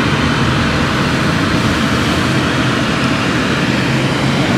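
Car air-conditioning blower running steadily inside the car's cabin, a constant rushing hum.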